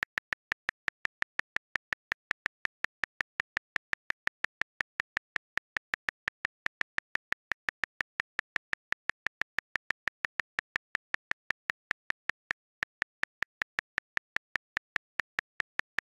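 Calculator app key-press clicks repeating rapidly and evenly, about five clicks a second, one for each tap of the same button.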